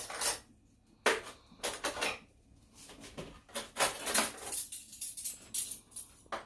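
Metal spoons and dishes clinking and clattering, with several short bursts of rattling as spoons are gathered.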